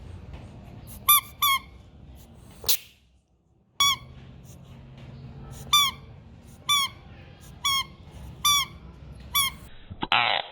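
A series of about eight short, high squeaks, all alike and spaced roughly a second apart, with a sharp click early on and a brief hiss-like burst near the end.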